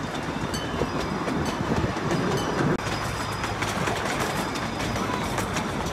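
Miniature ride-on railway train on 7¼-inch gauge track rolling along, its wheels clicking irregularly over the rail joints over a steady rumble, heard from an open passenger carriage.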